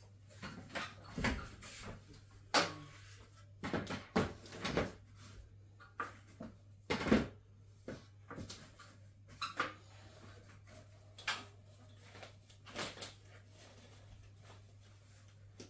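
Irregular knocks, clatters and rustles from rehanging curtains: fabric and curtain rings handled on a metal rod and an aluminium stepladder being moved, with the loudest clatter about seven seconds in.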